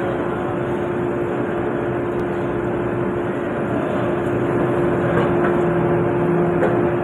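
Steady din of a steel-melting furnace shop: a dense, loud noise with a constant mid-pitched hum, while the furnace area blazes with fire and smoke.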